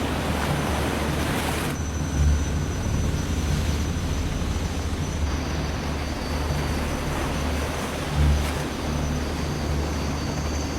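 Steady low engine rumble, with two brief louder swells about two seconds in and again about eight seconds in.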